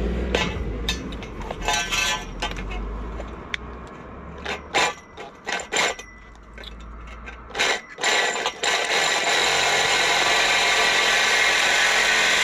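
A few clicks and clinks of tools being handled, then about nine seconds in a cordless reciprocating saw starts and runs steadily, cutting into copper pipe.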